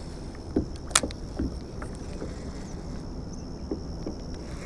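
Quiet handling noise from a kayak angler working a rod and reel: one sharp click about a second in and a few soft knocks, over a low steady rumble of wind and water.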